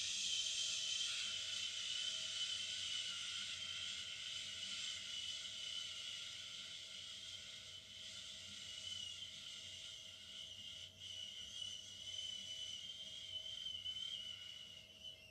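One long 'shhh' breathed out through pursed lips, held for about fifteen seconds and stopping near the end. It is the healing sound of the liver and the Wood element, made to accompany a self-massage of the liver.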